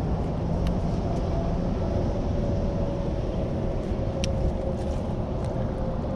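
Motorboat engine running steadily, a low drone with a faint hum, and a few light clicks.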